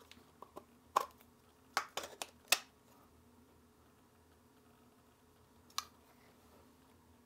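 Short plastic clicks and taps from handling a 3D-printed slip-on lens hood on a camera lens: a few small ticks, a sharper click about a second in, a quick cluster around two to two and a half seconds, and one more click near six seconds.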